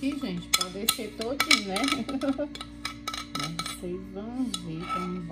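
A metal spoon clinking and scraping against a glass mixing bowl while pizza batter is scraped out into an aluminium pan: a quick run of sharp clinks over the first half, sparser later. Background music with singing plays underneath.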